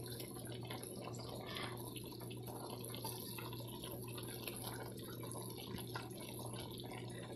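Brown stew chicken simmering in a pan: faint, steady bubbling of the gravy over a low, even hum.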